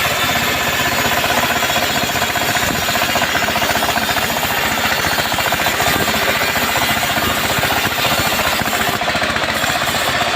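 Long-bar two-man chainsaw (gergaji selendang) running at full throttle and cutting through teak wood, a loud, steady rasping drone.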